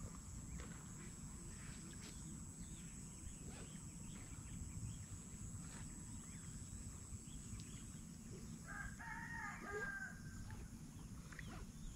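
A rooster crows once, about nine seconds in, a single call that falls in pitch at its end. Under it runs a steady high-pitched whine that stops just before the crow, and a low rumble.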